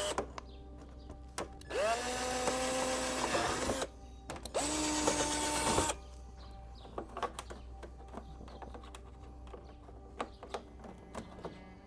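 Power drill run in three bursts, a brief one at the start and then two of about two and one and a half seconds. Each spins up to a steady whine and winds down, drilling a little further into a motorcycle's plastic fairing. Faint clicks and handling knocks follow in the second half.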